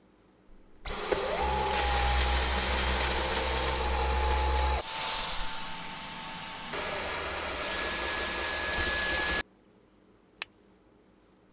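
Dyson Ball Multi-Floor 2 upright vacuum cleaner switched on: the motor spins up with a short rising whine about a second in, then runs steadily with a high whine. Its sound shifts twice midway, then cuts off abruptly, followed by a single click.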